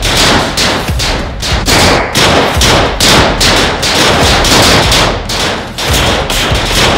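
Handgun gunfire in a sustained barrage, with several sharp shots a second overlapping almost without a break.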